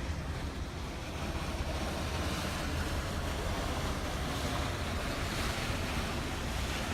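Wind buffeting the microphone with a low rumble, over a steady rush of wind and harbour water, slightly louder about two seconds in.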